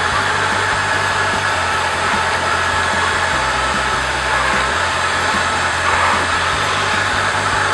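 Robot vacuum cleaner running, its suction fan giving a steady, loud whir.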